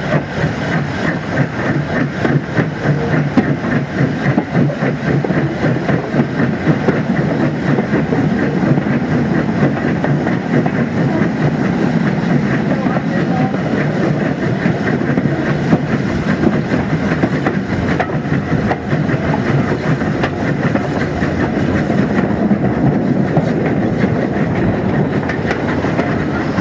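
SECR H class 0-4-4T steam tank locomotive No. 263 and its train running along the line, heard close up: a steady rumble with the wheels rattling and clicking over the rail joints.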